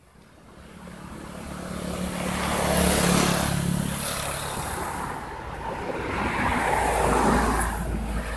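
A motor vehicle passing, its engine hum swelling to loudest about three seconds in, easing, then swelling again near seven seconds before fading.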